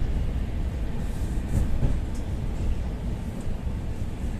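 Ivolga 4.0 electric multiple-unit train running, heard from inside the carriage: a steady low rumble.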